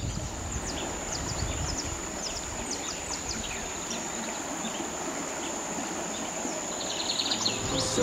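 Steady rush of a wide, muddy river running high after heavy rain, with birds giving short, scattered chirps over it and a steady high whine throughout.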